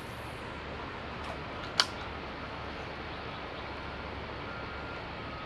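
Steady rush of flowing river water, with one sharp click a little under two seconds in.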